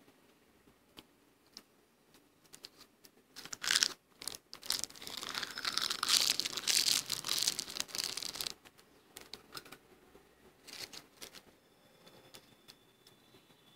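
Freezer frost being bitten and chewed: a soft, dense crunching for about four seconds in the middle, with scattered crackles and clicks before and after.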